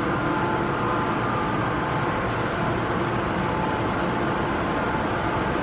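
Steady rushing noise with a faint, even hum from the machinery of an indoor pool room.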